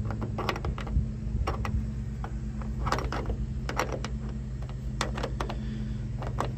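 Metal clinks and taps as a steel L bracket is handled and fitted onto bolts on a steel truck bed rail: irregular sharp clicks, about one a second, over a steady low hum.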